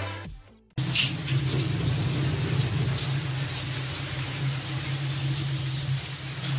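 Water running steadily from a tap or shower in a small tiled bathroom, with a steady low hum underneath; it starts abruptly under a second in.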